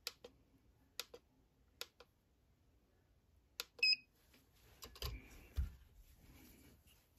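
A digital trigger pull gauge being handled: several light clicks and taps, then a click and a short electronic beep about four seconds in as it is switched on. Near the end comes soft rustling and a couple of dull knocks as the steel revolver is picked up off a cloth mat.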